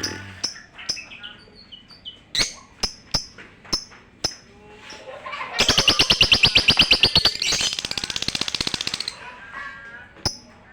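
Lovebird giving sharp, high chirps every half second or so, then breaking into a long, fast rattling trill lasting about three and a half seconds that speeds up halfway through, followed by a few more chirps.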